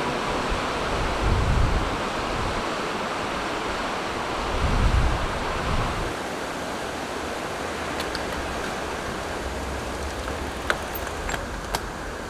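Steady rushing of lake surf and wind, with wind buffeting the microphone twice in the first half. A few sharp clicks near the end.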